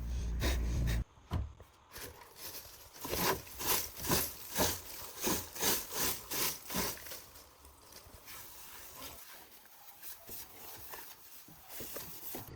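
Rhythmic scraping strokes on a surface, about two a second, that fade into a faint hiss after several seconds; a low rumble fills the first second.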